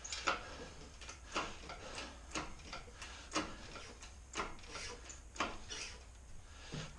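Hydraulic engine hoist being pumped by hand: regular clicks, a stronger one about once a second with a fainter one between, as the pump handle goes down and up to take up the engine's weight.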